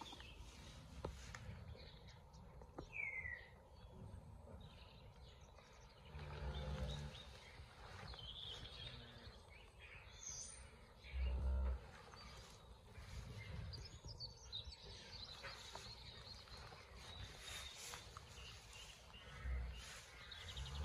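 Quiet barn ambience with a few faint bird chirps, one a short falling chirp about three seconds in. Two short, low rumbling sounds come about six and eleven seconds in, the second louder.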